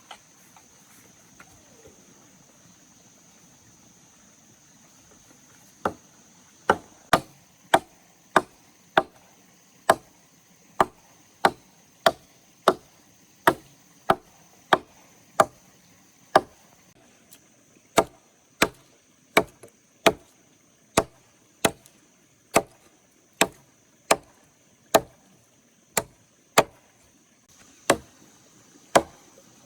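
Wood being chopped with a blade. The first few seconds are quiet, then come sharp, regular strokes about one and a half a second, with two short pauses.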